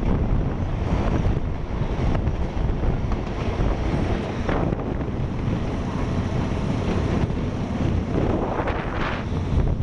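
Wind buffeting the microphone held out of a moving train's window, over the steady rumble of the train running along the track.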